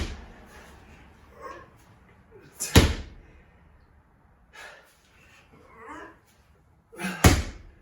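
A weighted slam ball thrown down hard onto the floor, landing with three loud thuds: one at the start, one about three seconds in and one near the end.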